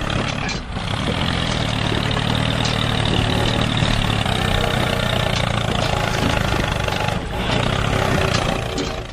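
Steady engine running sound, a low drone, with brief dips about half a second in and again near seven seconds.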